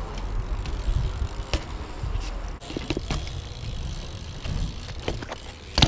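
BMX bike rolling over pavement: a low tyre rumble with scattered clicks and knocks from the bike, and a sharper knock near the end.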